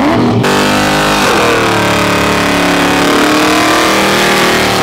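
A car engine revving hard and held high in the revs, its pitch wavering slightly, over a steady hiss. This is typical of a car drifting.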